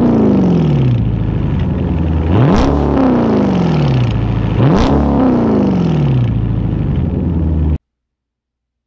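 Dodge Charger's 392 (6.4-litre) Hemi V8 through a loud aftermarket exhaust, blipped twice from idle. Each rev climbs quickly and drops slowly back to a rumbling idle. The sound cuts off suddenly near the end.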